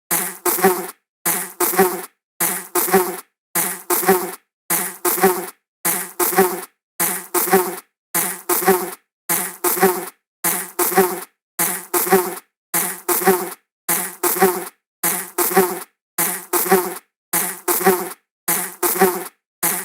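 Wing buzz of a flying insect, in short buzzes that come in pairs, each pair about a second apart with silence between, repeating evenly like a loop.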